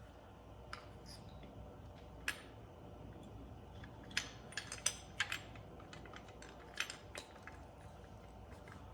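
Light, scattered clicks and clinks of small hard parts being handled and fitted together during hand reassembly of an electric outboard motor, about ten in all, bunched around the middle.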